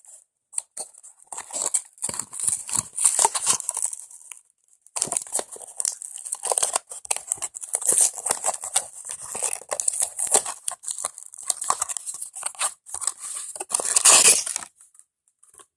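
A toy's packaging crinkling and tearing as it is opened by hand, in irregular crackly handfuls. There is a short pause about four and a half seconds in, and the loudest tearing comes near the end.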